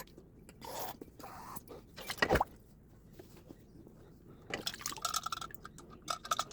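Liquid splashing and dripping while small carburetor parts are washed, with a sharp knock of a part being handled about two seconds in.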